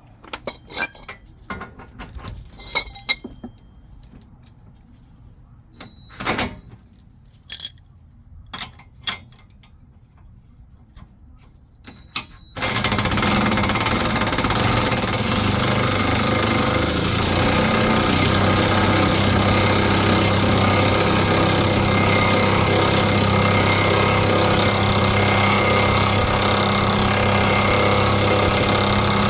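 Metal clinks of bearing-press tool pieces being set against the hub. About halfway through, a loud, steady power-tool noise starts abruptly and keeps going: an impact wrench driving the press screw to force the new wheel bearing into the knuckle.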